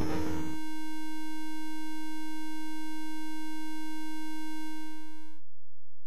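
VCV Rack software modular synth patch run through a Chronoblob 2 delay: the busy sequenced synth line stops about half a second in, leaving one steady held mid-pitched tone that cuts off abruptly about five and a half seconds in.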